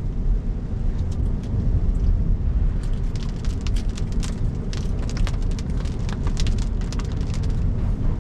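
Tyre and road rumble from an electric Cybertruck rolling steadily on wet pavement, with many sharp ticks of water hitting the body, growing thicker about three seconds in.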